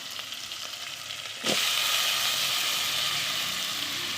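Food frying in hot oil, a steady sizzle. About a second and a half in, the sizzle suddenly gets louder, then slowly eases off.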